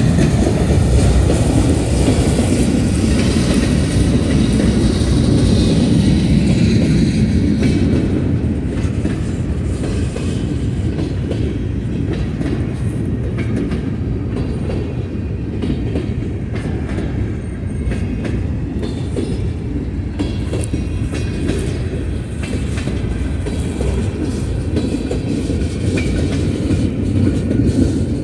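Freight train rolling past, with a steady low rumble and the clickety-clack of its cars' wheels over the rail joints.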